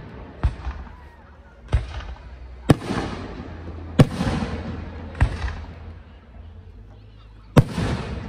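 Aerial firework shells bursting overhead: six sharp bangs over about eight seconds, the loudest near three, four and seven and a half seconds in, each trailing off in a fading rumble.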